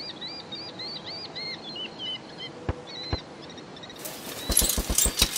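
Birds chirping, a quick series of short up-and-down chirps, then two sharp clicks about half a second apart and, near the end, a rapid run of rattling clicks.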